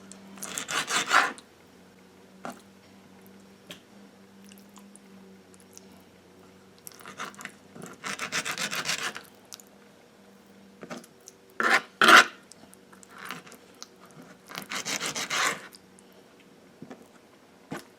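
Knife sawing and scraping on a cutting board as chicken livers are trimmed, in several short bursts of quick strokes, a sharper one about midway, over a faint steady hum.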